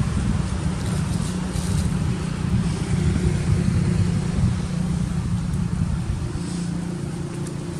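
Steady low rumbling outdoor noise, with a faint steady hum joining in past the middle.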